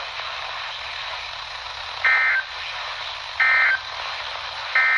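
Emergency Alert System end-of-message signal on NOAA Weather Radio: three short bursts of warbling two-tone digital data, about one and a third seconds apart, marking the end of the warning. Steady radio static hiss from weak long-distance reception runs underneath.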